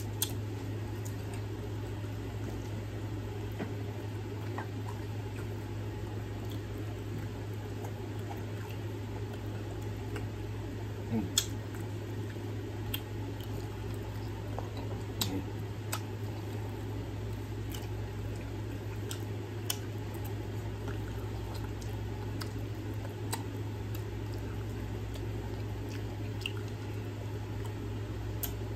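Close-miked chewing and wet mouth sounds from eating fried chicken off the bone, with scattered short clicks, over a steady low hum.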